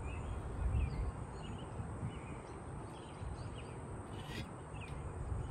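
Outdoor pond-side ambience: a low rumble of wind on the microphone, with short faint bird chirps scattered throughout and a brief rustle or click about four seconds in.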